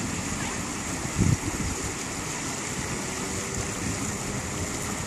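Wind buffeting the microphone: a steady rushing noise with heavy low rumble, and a stronger gust about a second in.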